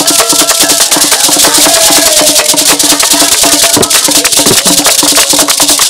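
Ewe drum ensemble: two sticks beat a fast, steady rhythm on a skin-headed drum while beaded gourd rattles (axatse) shake along with it.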